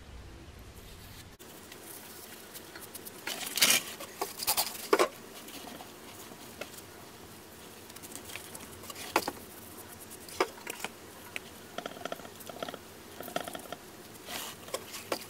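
Rubber-gloved hands patting, rubbing and smoothing wet cement: soft irregular scratching and tapping, with a few louder scrapes about four to five seconds in and again around nine to ten seconds.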